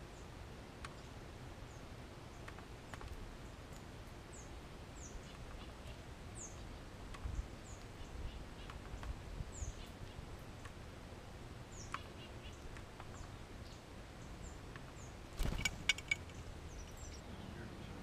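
Faint high, short falling chirps from small backyard birds, repeated every second or so, over quiet outdoor ambience. Scattered light taps from a blue jay pecking at a wooden suet feeder, with a brief cluster of louder knocks about three-quarters of the way through.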